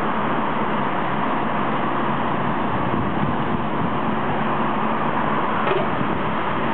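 Steady road traffic and engine noise with a low hum, and a short knock near the end.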